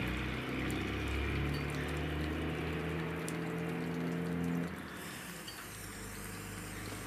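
LSO 618/619 gasoline camping stove with its fuel valve opened after priming: fuel vapour hissing at the burner over a low hum. The sound drops away about four and a half seconds in.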